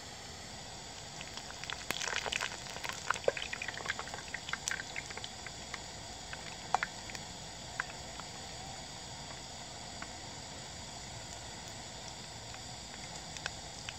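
Pakoras deep-frying in hot oil in a wok: a steady sizzle, with a burst of crackling and sharp clicks between about two and five seconds in and a few single ticks afterwards.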